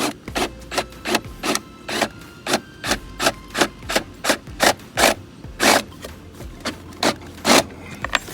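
Repeated rasping strokes of a hand tool worked back and forth, like filing or sawing, about two to three strokes a second in an uneven rhythm. A couple of the strokes near the end are louder.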